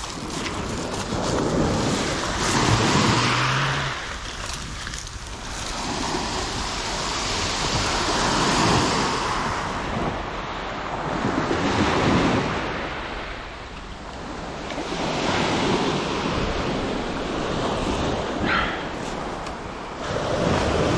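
Small waves breaking and washing up and back over a shingle beach, swelling and easing every few seconds.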